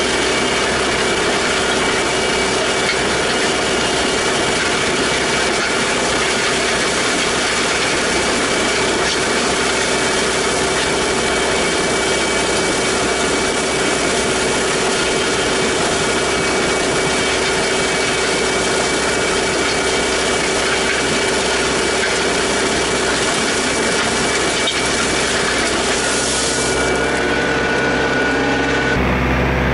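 A compact tractor's diesel engine runs steadily under load while the steel land plane behind it drags and scrapes loose gravel, a continuous grinding rasp. The grating thins out near the end.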